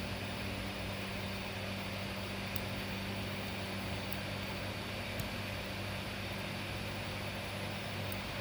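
Steady electrical machine hum with a constant low drone, and a few faint light clicks.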